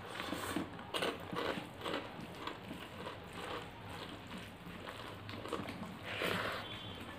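Eating by hand: wet chewing and fingers squishing rice and curry on a plate, in short irregular bursts about twice a second, over a low steady hum.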